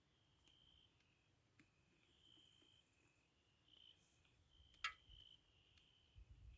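Near silence, with faint high chirps of steady pitch repeating about once a second, and one sharp click about five seconds in.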